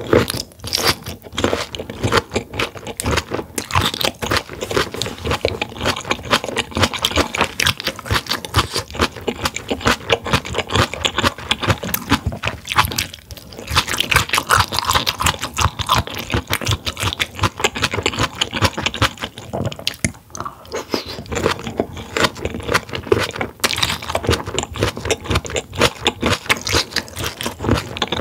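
Close-miked mouth sounds of a person chewing grilled mullet gizzard: a dense, steady run of crunching chews, with brief pauses about halfway and about two-thirds of the way through.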